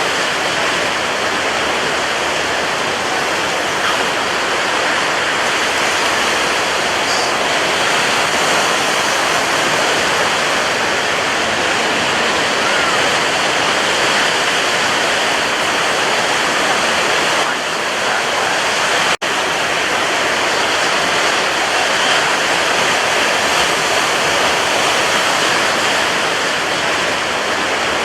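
Sea waves, a continuous steady wash of surf without distinct separate breakers, with a split-second gap about two-thirds of the way through.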